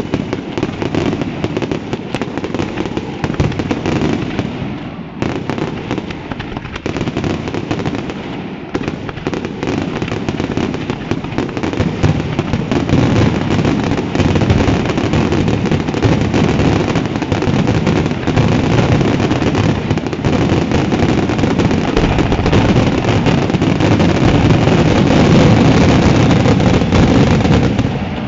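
Fireworks display in a dense, continuous barrage of bangs, growing louder from about halfway through to its loudest near the end and then breaking off: the finale of the show.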